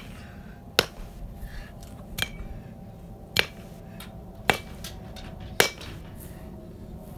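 A baseball bat striking a broken-open pumpkin five times, about once a second: sharp cracks, some with a short ring after them.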